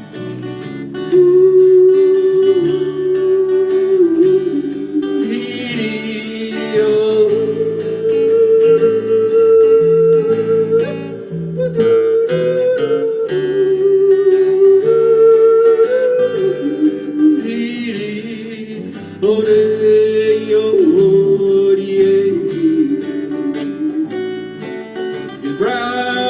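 Live country band music: acoustic guitar under a long-held wordless lead line that slides between notes, in the manner of a yodel.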